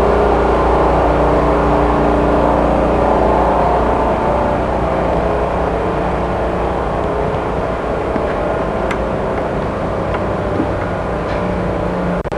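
An engine running steadily, with a low hum and steady tones that ease off a little about four seconds in, and a few faint clicks later on.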